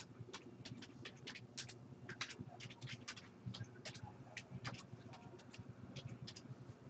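Faint, irregular light clicks and taps, a few a second, over a low steady hum.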